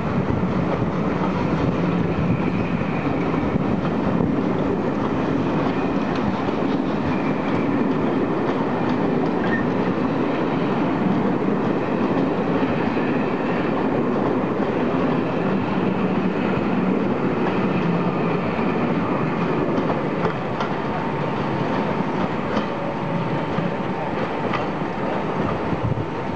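Steam-hauled passenger coaches rolling past at low speed over station pointwork, steady wheel and rail noise with repeated clicking as the wheels cross joints and points. A faint thin steady tone joins in near the end.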